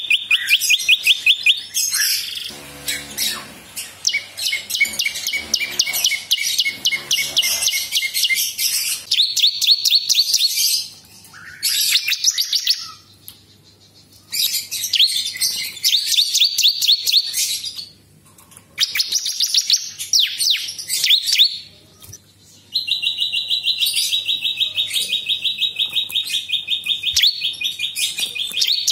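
A caged prinia (prenjak) singing its loud, rapid-fire trilled song in bursts with short pauses between them. It ends in a long, even trill lasting about six seconds.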